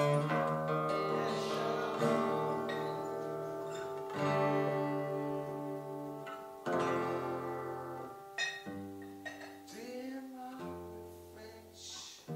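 Acoustic guitar chords strummed about every two seconds and left to ring out, the sound slowly dying away.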